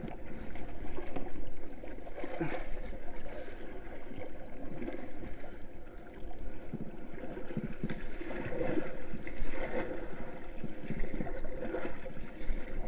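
Water splashing and sloshing around a large board floating at sea, in uneven swells, as the board is paddled.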